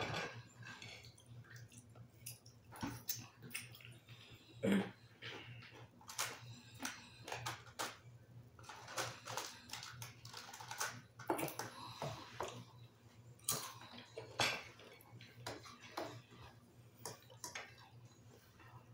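Table noises of eating and handling bowls: irregular clicks, knocks and short scrapes, with a few denser patches of clatter in the middle, over a steady low hum.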